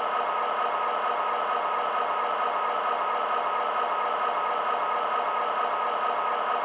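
M.T.H. GP40 model locomotive's onboard sound system playing its diesel prime-mover sound, running steadily through a small speaker.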